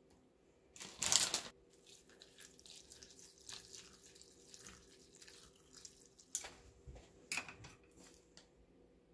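Kitchen sink tap run in a short burst about a second in, then light clinks and knocks of kitchen work.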